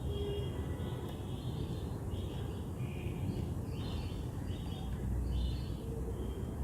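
Birds chirping in short repeated calls over a steady low background rumble.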